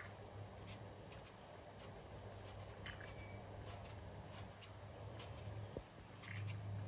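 Faint scratchy ticks of a small knife paring the skin off an apple, over a low steady hum.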